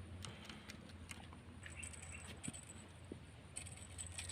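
Faint scattered light clicks and rustles, like gear being handled, over a low steady hum.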